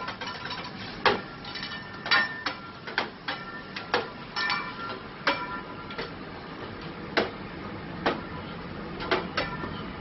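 Metal teppanyaki spatula and fork clacking and ringing as they are flipped, caught and struck against each other and on a stainless-steel table in a utensil-juggling routine. The knocks come irregularly, about one every half second to a second, some in quick pairs.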